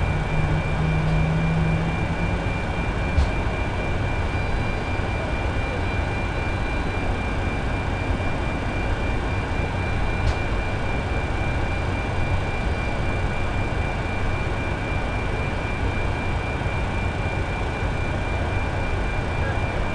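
Steady flight-deck noise inside a Boeing 747 Shuttle Carrier Aircraft with its four turbofan engines running: an even rush with a low hum and a thin, high, steady whine, and a brief low drone in the first two seconds.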